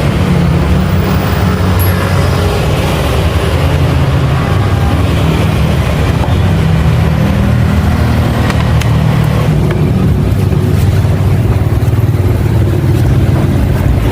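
Small motorcycle engine running steadily at a low, even speed.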